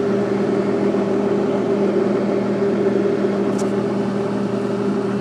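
A welder running steadily with a constant hum, over the even crackle of an electric arc as the cracks in an excavator bucket are filled with weld.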